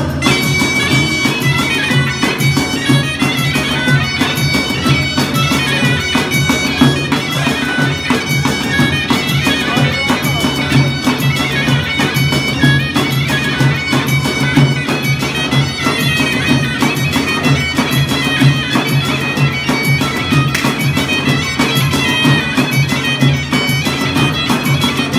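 Qara zurna, an Azerbaijani double-reed shawm, playing a melody of many short notes over a steady low drone, with a large double-headed drum beating a regular rhythm.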